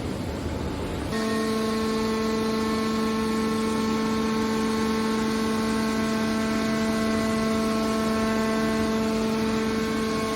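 Steady machinery noise, then about a second in a factory machine's steady pitched hum takes over and holds without change.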